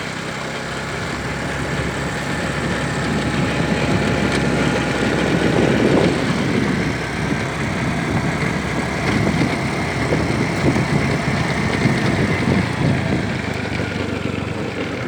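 An engine running steadily, growing louder over the first few seconds, then holding with an uneven low rumble.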